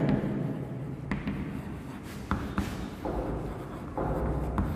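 Chalk scratching and tapping on a chalkboard as words are written, in a series of short strokes.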